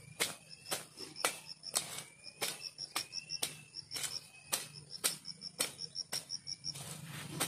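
Sharp snaps at roughly two a second, unevenly spaced, as plant stems are picked or pulled by hand. Crickets chirp in quick pulses throughout.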